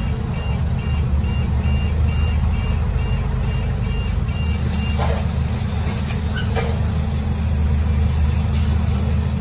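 Door warning beeper of a Scania OmniCity double-decker bus's faulty rear door, beeping about twice a second and stopping about four and a half seconds in. Under it runs the steady low hum of the bus's idling engine.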